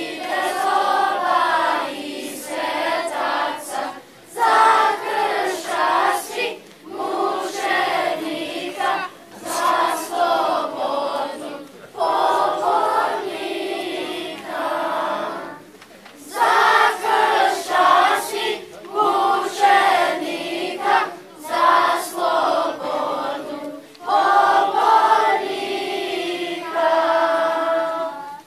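Children's choir singing together in phrases a few seconds long, with short breaks between them, ending on a held note.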